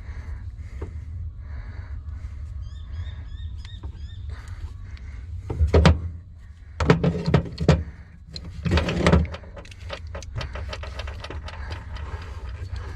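Handling noise as heavy battery cable and its eyelet lugs are worked: three loud clattering thumps about six, seven and nine seconds in over a steady low hum, with a few short high chirps early on.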